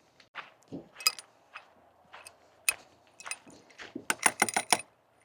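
Metal parts of a Coleman portable camp grill being handled and opened: a scatter of light clinks and rattles, coming fast in a cluster near the end.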